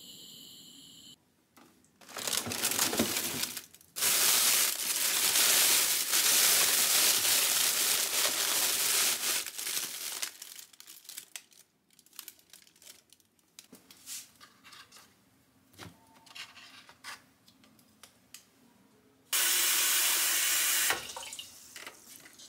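Kitchen tap water running in two long spells that start and stop abruptly, with small clicks and knocks of handling food and utensils in between.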